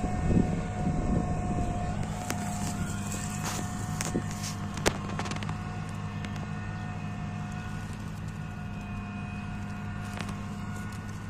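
Combine harvester running steadily as it harvests grain: a continuous engine hum with a steady high whine over it. There is wind on the microphone in the first second, and a sharp click about five seconds in.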